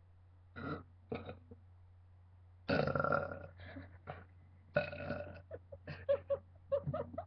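A person burping on purpose, without soda: two short burps, then two long drawn-out ones about three and five seconds in, followed by a quick run of short burps.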